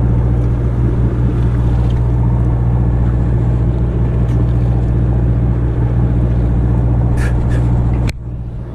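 Sportfishing boat's engine running with a steady low drone. The sound drops away abruptly near the end.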